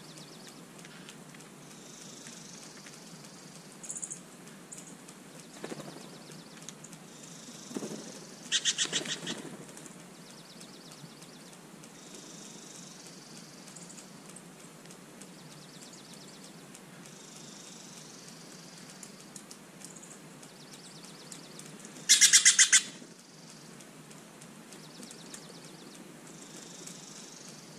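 Steller's jays calling: two short bursts of quickly repeated notes, one about nine seconds in and a louder one about twenty-two seconds in, with a few soft knocks in between.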